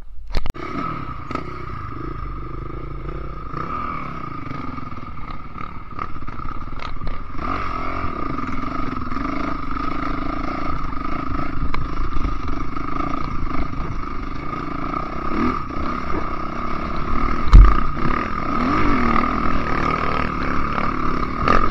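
Enduro motorcycle engine being ridden off-road, its note rising and falling with the throttle and growing louder as it climbs, with clatter and scraping from the trail. One sharp loud knock about 17 seconds in, as the bike hits a bump.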